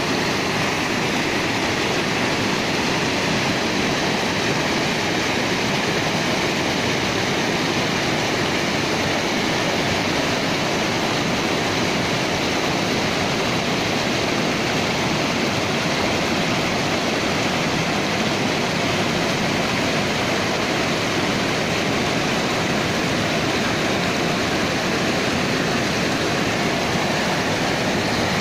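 Fast, clear mountain river rushing and splashing over boulders in rapids: a steady, full rush of water.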